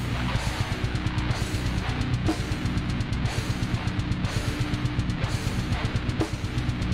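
Live metal band playing an instrumental passage: electric guitars over fast, driving drums, with no vocals.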